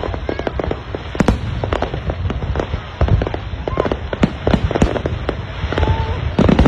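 Aerial fireworks display: many shells bursting in quick, irregular succession, a dense run of bangs and crackles over a continuous low rumble.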